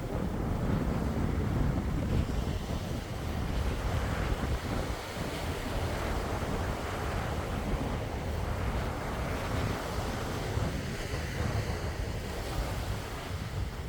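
Sea waves washing in, swelling and easing every few seconds, with wind rumbling on the microphone.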